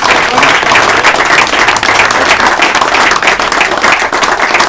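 A small group applauding: many hands clapping steadily in a dense crackle.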